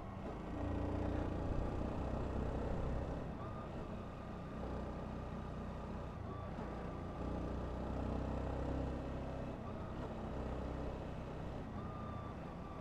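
Honda CBR125's single-cylinder four-stroke engine running steadily under the rider, with road and wind noise, the engine note swelling a little about half a second in and again around seven seconds in.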